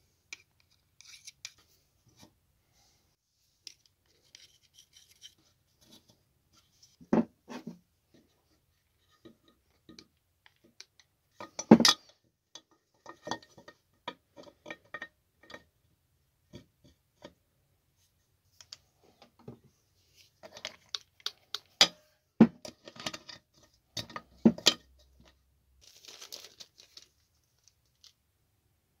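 Scattered knocks, clicks and scratching of small objects being handled, with a few sharper knocks about 7, 12, 22 and 25 seconds in.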